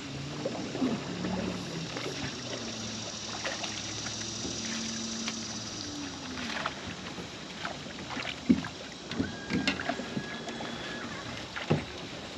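A trout being landed with a net beside a small aluminum boat: water sloshing around the net, with a steady low hum through the first half. Then several sharp knocks and thumps on the boat, the loudest past the middle and another near the end.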